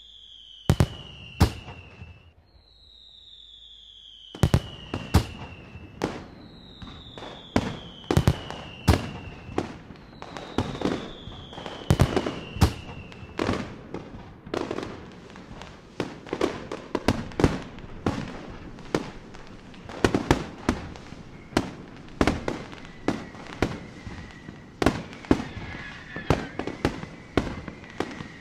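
Fireworks going off: a dense run of sharp bangs, with four long whistles falling in pitch through the first half and a steady high whistle near the end.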